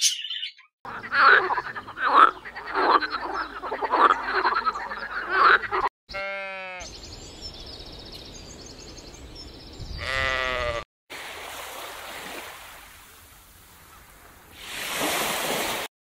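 Sheep bleating: one short bleat about six seconds in and another about ten seconds in. Before them come several seconds of harsh, rapidly repeated croaking animal calls, and after them a steady outdoor hiss that swells near the end.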